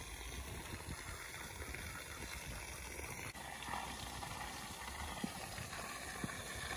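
Faint, steady outdoor background hiss with a low, uneven rumble and a couple of soft clicks.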